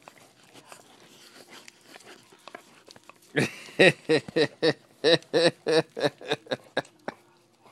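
A golden Labrador licking a person's face, with faint wet licking clicks. About three seconds in, a person laughs in a rapid run of about a dozen short bursts, some four a second, for about three seconds.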